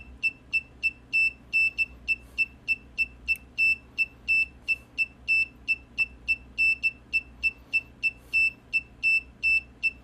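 Arduino-driven buzzer beeping Morse code, a run of short dots and longer dashes at one steady high pitch, spelling out text typed into the serial port.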